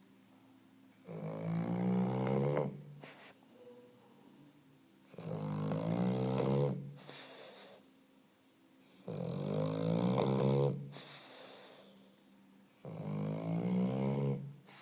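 English bulldog snoring: four loud snores, each about one and a half to two seconds long and about four seconds apart, with quieter breathing between.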